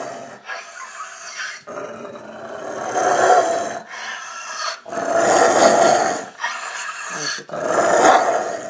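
Rottweiler growling in a run of about five long growls, each one to two seconds, with short breaks for breath between them.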